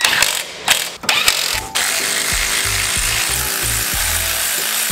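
Cordless power ratchet running steadily to drive a brake caliper bracket bolt home, after a second or so of clicks from the tool being set on the bolt.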